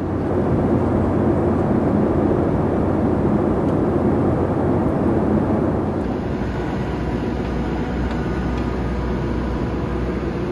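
Steady jet engine noise heard inside an airliner's cabin in flight. About six seconds in it gives way to a deeper rumble with faint steady whines, from a regional jet on the airport ramp.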